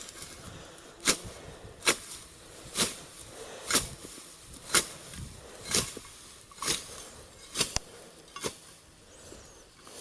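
Hoe chopping down tall nettle stalks: nine sharp swishing cuts, about one a second, that stop near the end.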